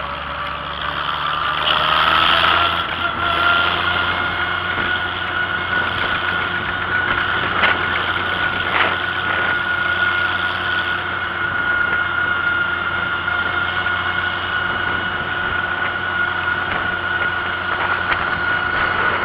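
Old farm tractor engine running at a steady speed while towing a bench wagon, with a steady high whine over the engine note and a couple of faint knocks about halfway through.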